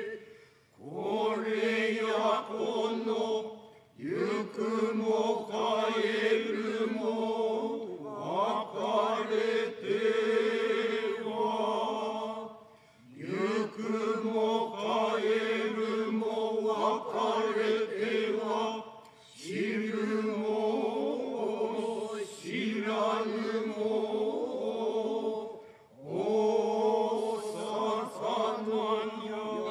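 Kanze-school Noh utai chanted in unison by a group of men and women: long phrases held on a few steady pitches, broken by short pauses for breath every few seconds.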